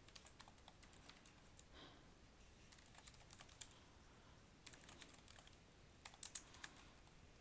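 Faint typing on a computer keyboard: several short runs of keystrokes with brief pauses between them.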